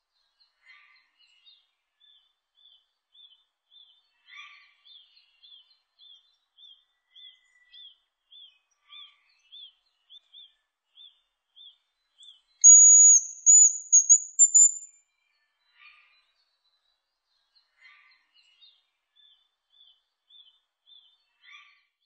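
Hazel grouse singing: one very high, thin whistled phrase about halfway through, a drawn-out note breaking into short notes and rising slightly at the end. Behind it, faint short chirps repeat about two or three a second, with a few lower calls scattered between.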